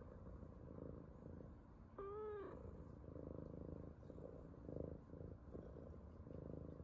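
Brown tabby cat purring steadily while being stroked, with one short meow about two seconds in.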